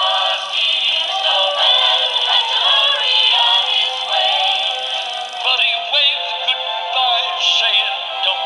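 Animated plush singing snowman toys playing a Christmas song through their small built-in speakers: a thin, tinny electronic voice singing over a backing tune.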